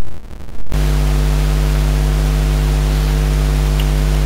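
A few low thumps, then a loud, steady low buzz that starts abruptly and holds; near the end a quick falling sweep cuts through it.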